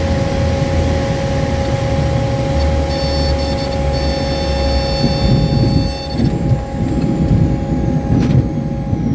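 Small bush plane's engine and propeller drone steadily in the cockpit during landing on a gravel airstrip. A high warning tone sounds for about three seconds midway, and after touchdown the wheels rumble unevenly over the gravel.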